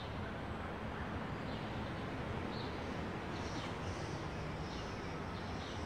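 Quiet, steady background noise with a few faint short high chirps and no distinct knock or clatter.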